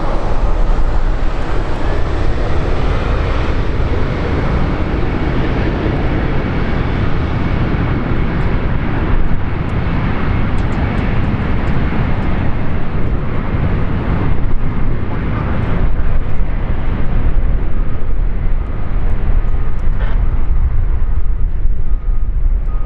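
Jet airliner engines running at the airport, a steady loud noise whose upper range slowly fades, mixed with heavy wind rumble buffeting the microphone.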